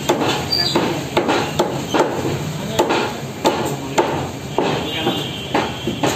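Meat cleaver chopping chicken pieces through bone on a wooden tree-trunk chopping block: a steady run of sharp chops, about two a second.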